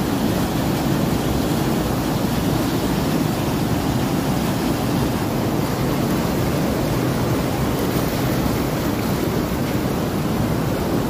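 Muddy floodwater rushing and churning through a gateway and along a flooded street: a steady, unbroken noise of fast-flowing water.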